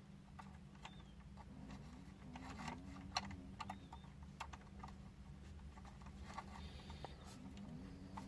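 Light, scattered clicks and taps of small plastic Playmobil parts being handled and pushed together while a bent tube is fitted into the DeLorean model. A faint, low, wavering sound is in the background twice, in the first half and again near the end.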